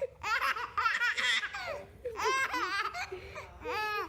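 High-pitched human laughter, ending in a longer held note near the end.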